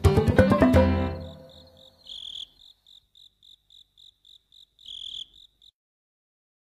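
Soundtrack music fading out, followed by a cricket chirping in short, regular high pulses about three a second, with two longer, louder chirps among them.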